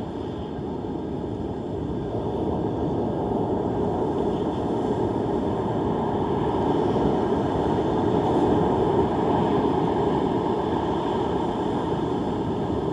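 Steady rushing of rough surf and wind, stirred up by Hurricane Helene's storm surge, swelling a little louder about seven to nine seconds in.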